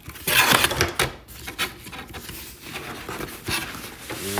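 Cardboard box being opened by hand: a loud scraping rustle of the flaps about half a second in, then lighter rubbing and taps of cardboard.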